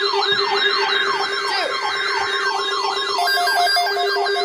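Several NOAA weather radio receivers sounding their alert alarms together for a severe thunderstorm watch. Overlapping siren-like falling sweeps come about three a second over a steady tone, and from about three seconds in a pulsing two-tone beep joins.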